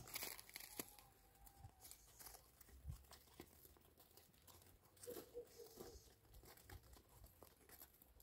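Faint crunching and small clicks of goats' hooves moving over crusted snow and stony ground, with a faint short call about five seconds in.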